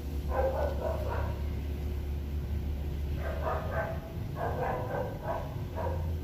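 A dog barking in four short bouts, over a steady low hum.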